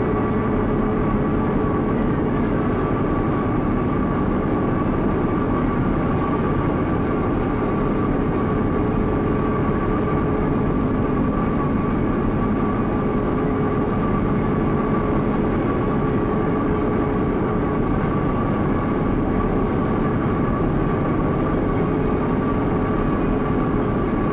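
Steady machinery drone in a steam locomotive heavy-repair shop, a noisy rumble with a steady hum held throughout, as a locomotive boiler is handled by overhead crane.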